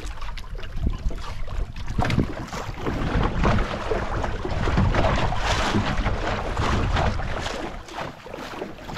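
Wind buffeting the microphone, with sea water sloshing against a small outrigger boat's hull; it eases a little near the end.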